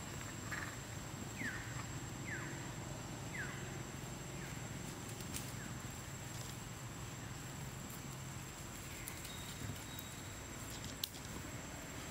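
Three short, high chirps, each falling in pitch, about a second apart, from a small animal over a steady outdoor background with a thin high whine; a single sharp click about eleven seconds in.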